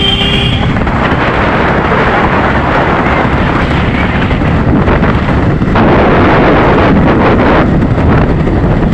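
Wind buffeting the microphone over the running noise of a moving vehicle on the road, loud and dense throughout. A horn beeps briefly at the very start.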